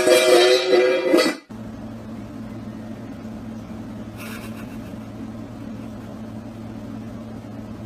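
Plucked-string music that cuts off about a second and a half in, followed by a steady low hum.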